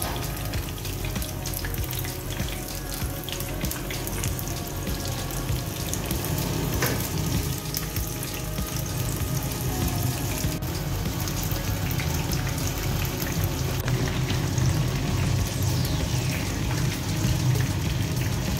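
Battered chicken pakoras deep-frying in hot oil in a pan, a steady sizzle, with background music.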